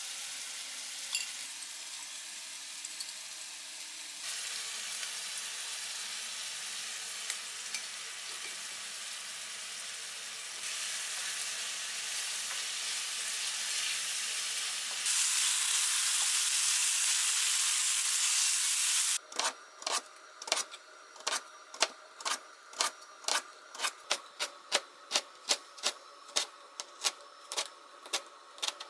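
Minced-meat sauce sizzling in a frying pan while a wooden spatula stirs it, with small scraping clicks; the sizzle steps louder a few times. About two-thirds through it gives way to a kitchen knife cutting a carrot into thin strips on a cutting board, with steady sharp strokes about two a second.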